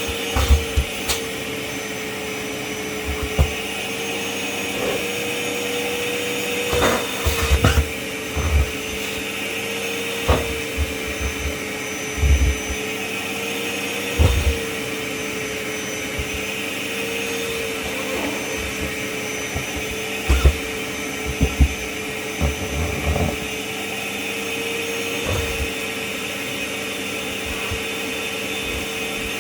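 Kärcher WD 6 P wet/dry vacuum cleaner running steadily with a constant motor whine and airflow hiss. Irregular low thuds and a few sharp knocks come through it.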